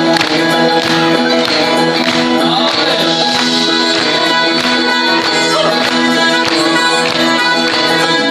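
Live band playing the song's instrumental opening: an accordion carries the tune in held chords over acoustic guitar and drums keeping a steady beat.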